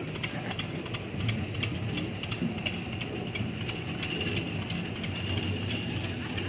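A John Deere 730's two-cylinder tractor engine runs steadily at low speed as the tractor creeps along.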